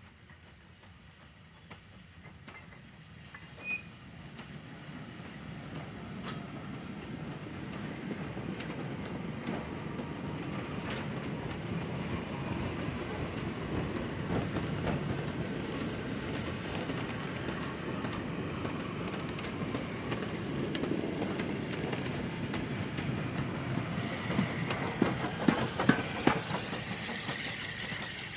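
Goods train of wagons rolling past behind a Q class 0-6-0 steam locomotive, the wheels clattering over rail joints and growing louder throughout. Near the end, as the locomotive draws level, there are several sharp knocks and a hiss of steam.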